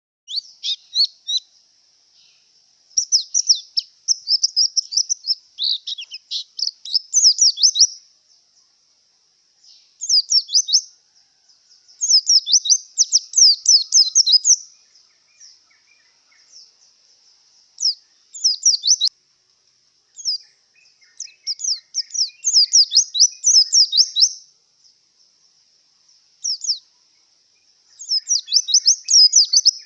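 White-eye (pleci) singing in breeding condition: bursts of rapid, high, sweeping chirps lasting one to five seconds, broken by short pauses.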